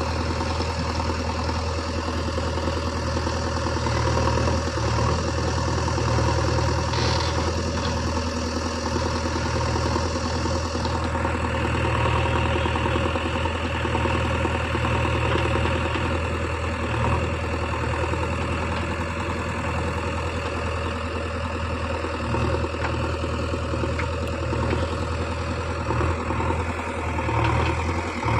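Diesel engine of a JCB 3DX backhoe loader running steadily at work, a continuous low engine drone.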